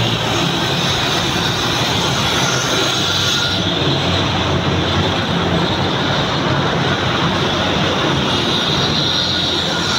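Steady din of road traffic, cars and motorbikes driving through an underpass.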